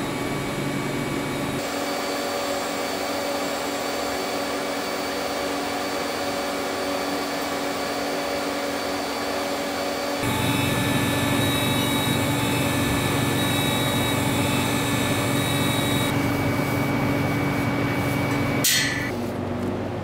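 TIG welding arc on a steel tube frame: a steady hiss and hum. The sound changes abruptly about a second and a half in and again about ten seconds in, and a short sharp noise comes near the end.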